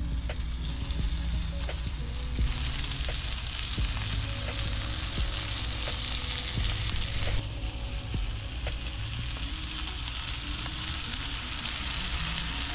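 Panko-crusted flounder fillets sizzling as they fry in butter in a pan. The sizzle grows louder a couple of seconds in and eases back about seven seconds in.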